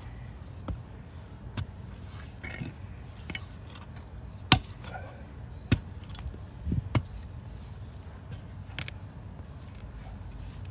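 Pick mattock chopping into soil and tree roots: separate strikes roughly every second, the loudest about halfway through.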